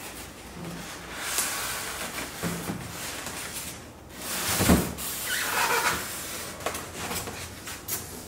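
Unboxing handling sounds: a polystyrene foam packing insert rubbing and scraping against a cardboard box as it is lifted out, with cardboard flaps rustling. A dull thump about halfway through, then a few lighter knocks.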